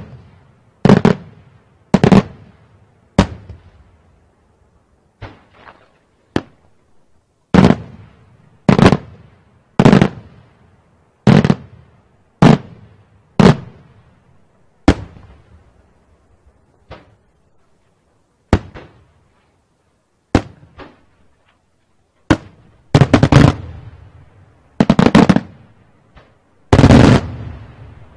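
Daytime aerial fireworks: a string of loud, sharp bangs from shells bursting overhead, roughly one a second with a few gaps, each trailing a short echo. Near the end the bangs come closer together and heavier, ending in a longer, rumbling blast.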